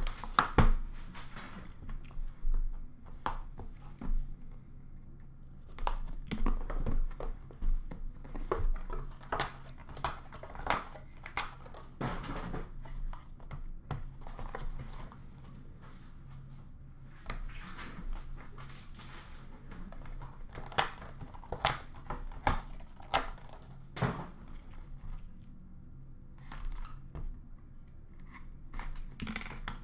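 A sealed hockey card box being unwrapped and opened by hand: plastic wrap tearing and crinkling, and the cardboard box scraping, tapping and flaps being pulled open, in irregular bursts with a few quieter pauses.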